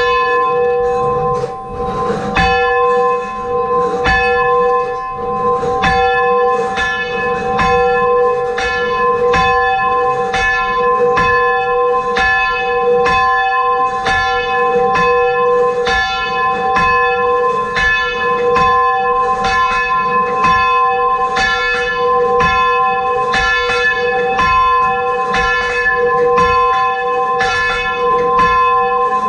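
Ring of six church bells (tenor about 10½ cwt, in F) being rung by a band, one bell striking after another in a steady, even stream, the tones ringing on over each other.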